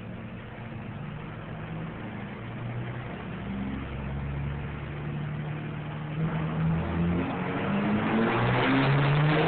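Dodge diesel engine pulling under load on a chassis dyno, revs climbing as road speed builds. It rises in pitch and grows louder toward the end of the pull.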